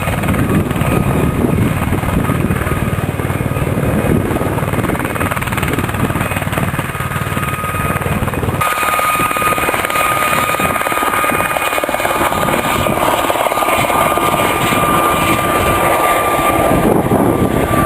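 Loud, steady aircraft engine noise. About eight and a half seconds in it changes abruptly, the low rumble dropping away and a steady whine standing out.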